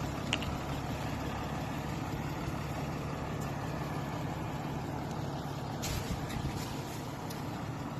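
A vehicle engine running steadily with a low, even hum, with a faint click about a third of a second in and a short hiss near six seconds.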